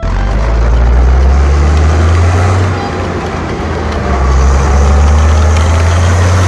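Motor vehicle engine running with a deep, steady rumble, easing a little about three seconds in and then building up again.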